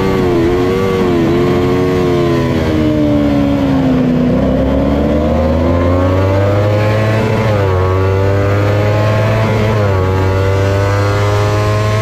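Kawasaki Ninja 250 parallel-twin engine under racing use. The revs waver and fall for the first few seconds as the bike slows, then climb steadily from about four seconds in, dipping briefly twice as it shifts up.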